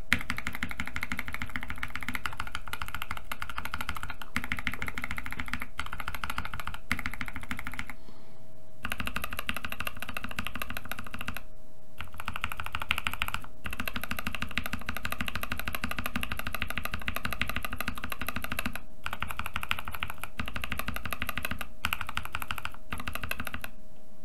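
Mechanical keyboard sound test: C3 Kiwi tactile switches lubed with Krytox 205g0 are pressed rapidly over and over, first with TX switch films and then with Deskeys films, giving fast, continuous key clacks broken by a few brief gaps.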